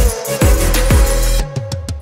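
Electronic background music with a steady beat and deep bass notes that slide down in pitch. The high end drops out briefly near the end.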